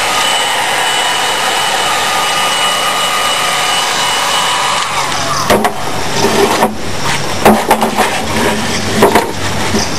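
Electric heat gun's blower running steadily as it softens a PVC pipe, cutting off about five seconds in. Then a run of knocks and clatters as the softened plastic and tools are handled on a wooden table.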